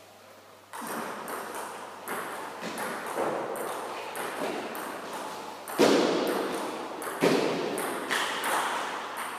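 Table tennis rally: the ball clicking off the paddles and bouncing on the table, a run of sharp knocks each trailed by hall echo. Two louder hits come about six and seven seconds in.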